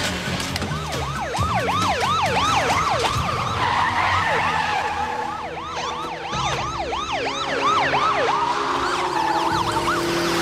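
Police sirens in rapid yelp mode: a fast rising-and-falling whoop repeating about three or four times a second, overlapping as if from more than one car, over background music.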